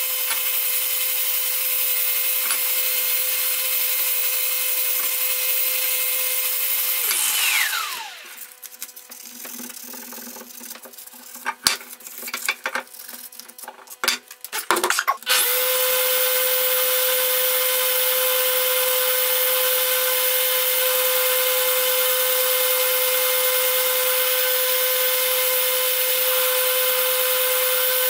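Electric random orbital sander running steadily with a constant whine while sanding rust from an old steel axe head. About 7 s in it is switched off and winds down in a falling whine. A stretch of quieter scraping and a few sharp clicks follows. About 15 s in the sander starts again and runs steadily, with the axe head held against its spinning pad.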